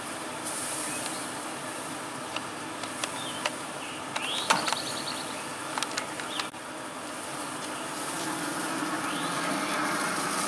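Pellet grill running with a steady hum, with several sharp clicks and knocks as the grill is handled and its lid lifted near the end. A couple of short rising chirps sound over it.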